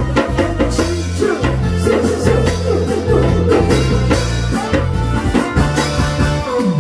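Loud backing-track music with a steady drum-kit beat and a heavy bass line.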